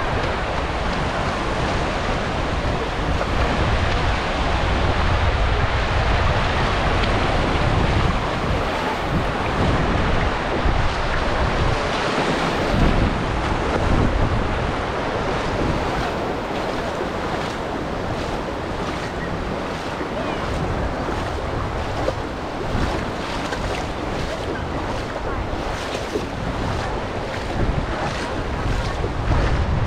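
Sea waves washing onto a beach, with wind buffeting the microphone. Through the second half, a runner's footfalls at about three steps a second.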